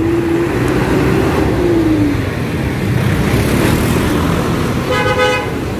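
Street traffic noise with a vehicle engine going past, its pitch falling over the first two seconds. A short, steady tone sounds about five seconds in.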